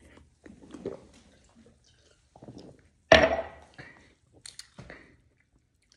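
Gulps of carbonated strawberry Ramune soda drunk straight down from a glass, followed about three seconds in by one short, loud sound from the drinker's throat.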